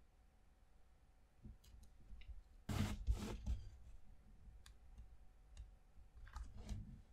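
Faint handling of popsicle-stick wood pieces: scattered light clicks, with two short rubbing noises about three seconds in and more handling noise near the end.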